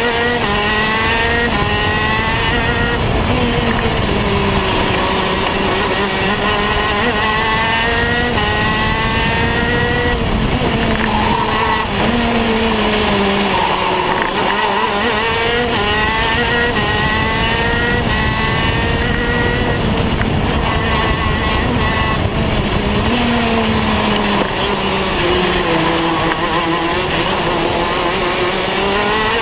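A KZ2 shifter kart's 125cc two-stroke engine heard onboard at race pace, its pitch climbing in steps as it is run up through the gears and falling away twice, about a third and two-thirds of the way in, as it slows and downshifts for corners.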